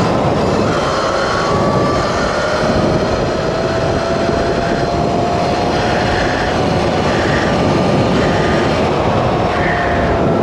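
Sur-Ron electric dirt bike's motor whining under throttle at road speed, its pitch climbing slowly, under heavy wind rush on the microphone. From about halfway in, short beeps sound roughly once a second; the rider took them for a warning from the battery, perhaps over voltage sag.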